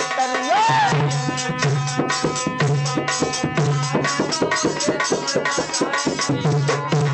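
Instrumental passage of a bhajan: a dholak plays a fast, steady rhythm under held harmonium chords, with a melody line bending in pitch about a second in.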